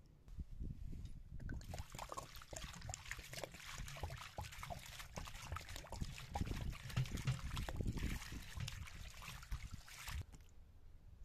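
Water poured from a clay jug splashes onto diced lamb liver in a stainless steel colander and trickles through, while a hand squishes and rubs the wet pieces to rinse them. The pouring starts about a second and a half in and stops shortly before the end.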